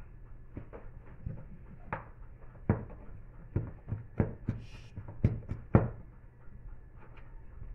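Kitchen knife chopping longaniza sausage on a plastic cutting board: a run of irregular knocks of the blade striking the board, a few of them much sharper than the rest.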